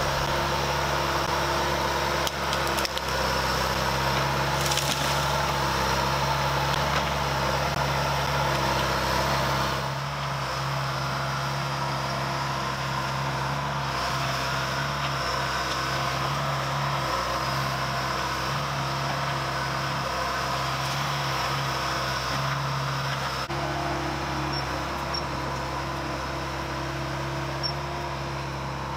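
Diesel engine of a John Deere crawler loader running steadily at work as it pushes over a tree, with a few sharp cracks of splintering wood in the first few seconds.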